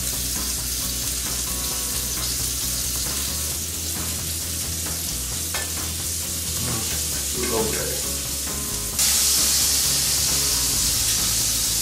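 Food sizzling in frying pans on an electric stove, a steady hiss that steps up louder about nine seconds in.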